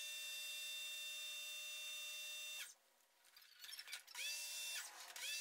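Campbell Hausfeld electric pressure washer's universal motor and pump whining while the trigger is held, its pitch rising as it spins up. It cuts out a little after halfway when the trigger is let go, the auto stop shutting off the pump, then starts up again twice in quick succession.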